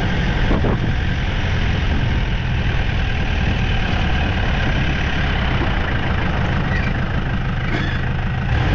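Isuzu V-Cross pickup's engine running steadily, a dense low rumble.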